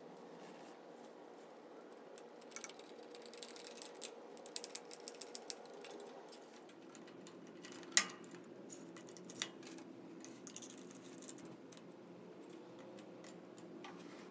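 Small metallic clicks and ticks as a screw with a washer is driven in by hand to fasten a digital depth readout to a drum sander's column: a few scattered clicks, a quick run of even ticks about halfway through, and one sharp click a little later. A faint steady hum sits underneath.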